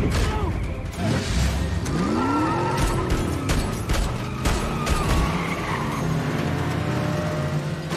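Film sound mix: a car's tyres skidding and its engine running inside a cargo plane's hold, with impacts and a rise-and-fall whoosh about two to three seconds in, over action score music.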